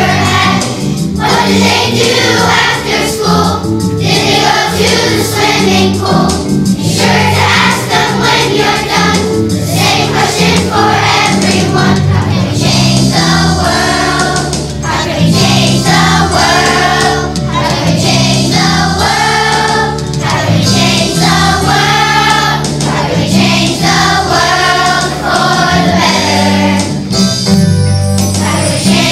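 A children's choir singing a song together over instrumental accompaniment with a steady bass line.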